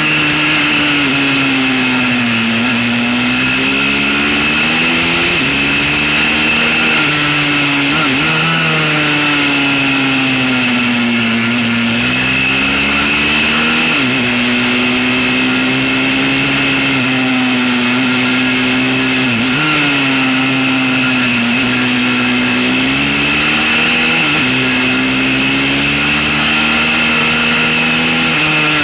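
Pit bike's small single-cylinder engine running hard on track, its pitch climbing under throttle and dropping sharply at each gear change, several times over, with a steady high whine over it.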